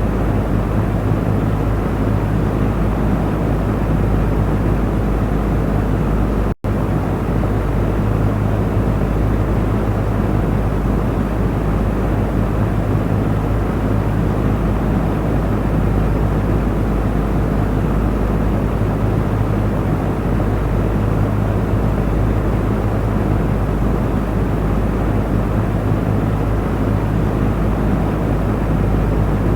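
Electric fan running steadily: an even rush of air over a low motor hum, broken once by a split-second dropout about six seconds in.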